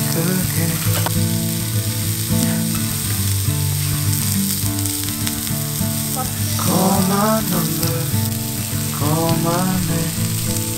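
Slices of beef sizzling on a hot tabletop grill pan, a steady frying hiss, under background music with a melody line that rises and falls twice in the second half.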